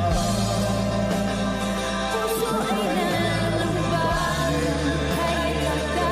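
Pop ballad: a singing voice over sustained bass notes that change every second or few.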